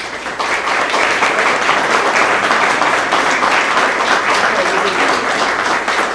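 An audience of about a hundred people applauding: dense, steady clapping that breaks out at once and holds.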